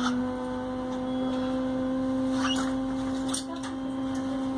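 NEMA 17 stepper motor, driven by a grbl-controlled CNC shield, spinning at a constant step rate and giving a steady whine.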